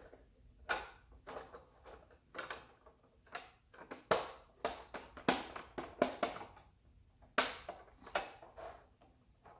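Hard plastic pieces of an LED ring light being handled and fitted onto its rim: a run of irregular clicks and knocks, thickest in the middle.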